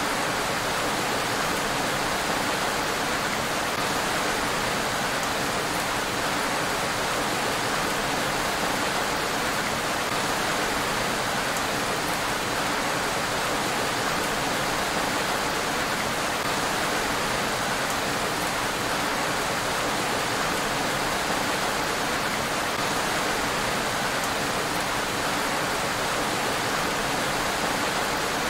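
Steady rain falling on a road: an even, unbroken hiss with no single drops or thunder standing out.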